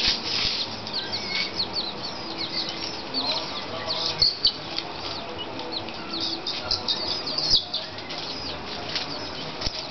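Many small birds chirping, short high chirps overlapping continuously, with a few louder chirps about four seconds in and again near the end.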